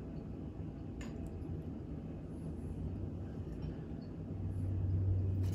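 A steady low hum that swells near the end, with one light metallic click about a second in as the center punch is set against the steel tong blank.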